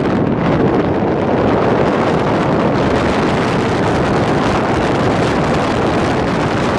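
Steady rushing noise of wind on the microphone together with the road noise of a moving vehicle.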